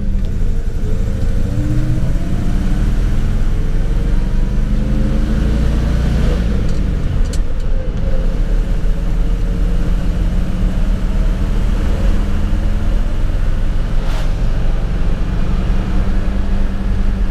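Stock 318 V8 of a 1977 Dodge D200 pickup, with single exhaust and two-barrel carburettor, heard from inside the cab while pulling a loaded trailer. The engine pitch climbs for about six seconds, drops, then holds steady.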